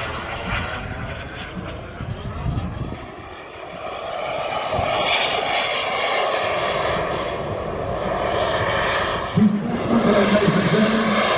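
Engine of a radio-controlled model jet aircraft flying a display. The engine noise dips about three seconds in, then swells again as the model comes closer.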